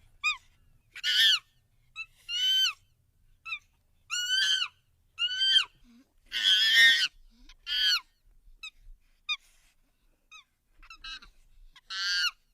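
Chimpanzee giving a series of short, high-pitched calls that rise and fall in pitch, about one a second. The calls turn fainter and shorter in the second half, and one louder call comes near the end.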